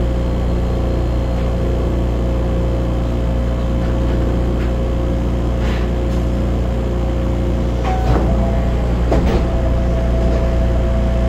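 Steady low hum with a high steady whine from an Osaka Monorail car's onboard equipment while it stands at a platform. A couple of short clunks come about eight and nine seconds in, after which a second steady tone joins.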